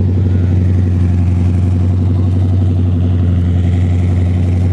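Holden Commodore's engine idling steadily, heard close to the tailpipe at the back of the car.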